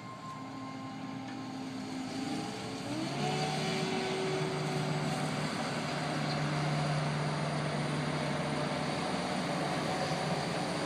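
Farm harvesting machinery's engine running steadily. About three seconds in its pitch rises and then holds at the higher speed.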